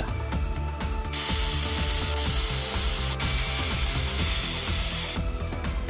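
Cordless drill/driver running to back screws out of a drill battery pack's plastic case, starting about a second in and stopping shortly before the end, over background music.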